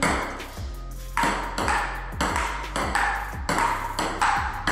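Table tennis rally: the ball struck back and forth with paddles and bouncing on the table, a sharp tick about twice a second, each with a short ringing echo, over a steady low hum.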